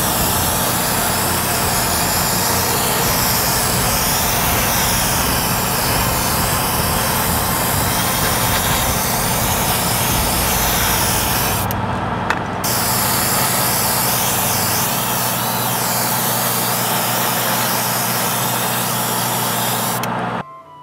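Airbrush spraying thinned flat white paint: a steady hiss of air, with the spray booth's exhaust fan humming underneath. The hiss stops briefly about twelve seconds in while the hum runs on, and everything cuts off just before the end.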